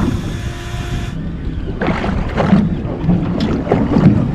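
Boat at sea: wind gusting on the microphone over the low rumble of the boat. A steady hum with thin tones cuts off suddenly about a second in.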